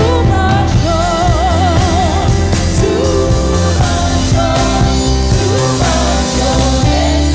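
Christian worship music: a voice singing with wide vibrato over a band with a strong, steady bass.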